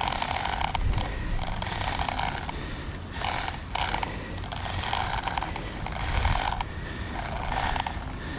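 A person breathing hard, with repeated breaths in and out about once a second, over low wind rumble on the microphone.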